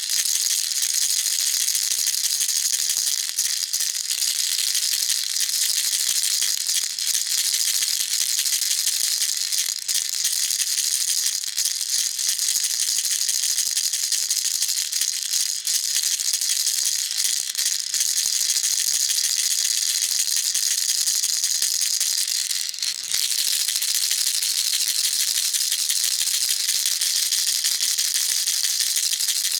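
Baby rattle shaken steadily: a dense, unbroken, high-pitched rattle, with one brief dip about three-quarters of the way through.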